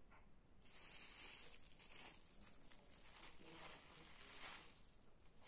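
Faint crinkling and rustling of a thin clear plastic bag being handled, from about half a second in until near the end.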